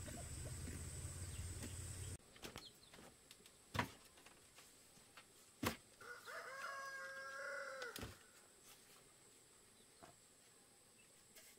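A rooster crows once, a single call lasting about two seconds, a little past the middle. Before it come two sharp knocks, as of bare feet on bamboo steps, and a third knock falls where the crow ends.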